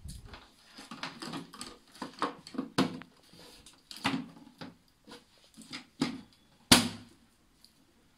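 Hard plastic clicks, knocks and scrapes as the front cover panel of a water purifier is pressed and snapped into place on its housing, with one sharp snap about two-thirds of the way through.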